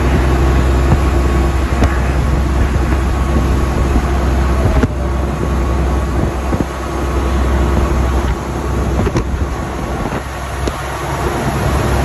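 Semi truck driving at highway speed, heard from inside the cab: a steady low engine drone with road and tyre noise and a few light clicks or rattles.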